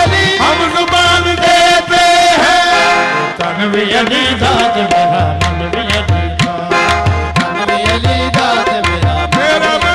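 Qawwali music: harmonium holding a melody over tabla drumming, the tabla strokes coming to the fore about three seconds in.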